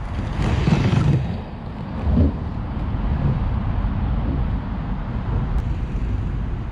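Wind buffeting the microphone with a steady low rumble, over which a kick scooter's wheels roll across the pumptrack rollers, loudest about a second in as the rider passes close, with a short thump a little after two seconds.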